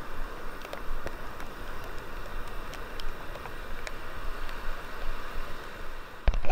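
Steady hiss of water with a few faint ticks, and a sharper knock near the end.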